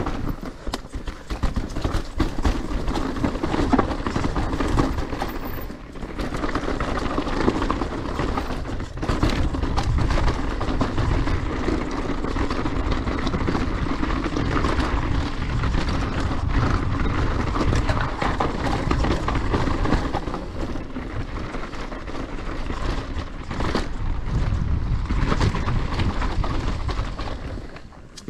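Specialized Kenevo SL S-Works e-mountain bike riding fast down a dirt trail: tyres rumbling and crunching over dirt and roots, the bike rattling and clicking over bumps, with wind buffeting the microphone.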